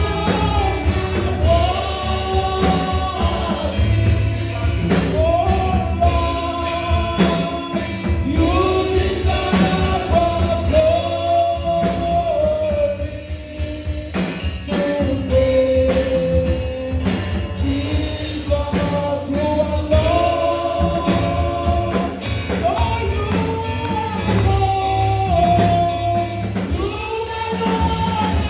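Live gospel worship music: a praise song sung by voices over a band with bass and drums.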